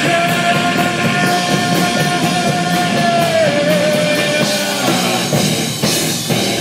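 Live rock band playing through a PA: distorted electric guitars, drum kit with cymbals and a singer. A long held note steps down in pitch about three and a half seconds in.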